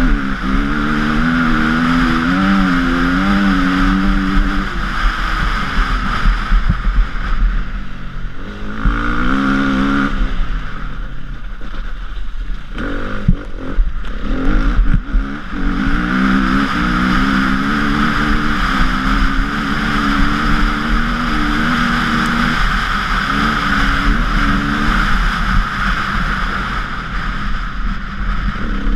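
KTM 350 EXC-F enduro bike's four-stroke single-cylinder engine revving up and down under hard riding, heard close from the bike. About midway the engine note drops low for a few seconds amid knocks and clatter, then pulls strongly again.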